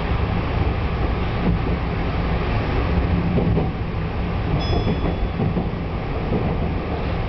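Tokyu Oimachi Line electric commuter train running along the track, heard from inside: a steady low rumble of wheels on rails and running gear. A brief high-pitched tone sounds about four and a half seconds in.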